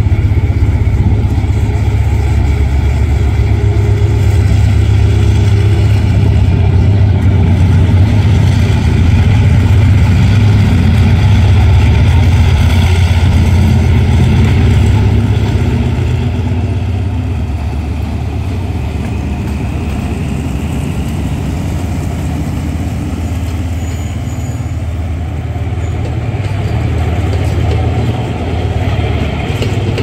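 Twin Cummins LTA50L V16 diesel engines of a GEA-class locomotive running hard with a deep, low engine note as the locomotive passes close by. The sound drops off about halfway through as the locomotive moves away.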